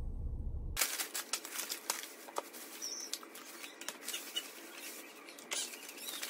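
Brief low rumble of a car cabin. About a second in it gives way to plastic takeout bags and aluminium foil rustling and crinkling as food is unpacked.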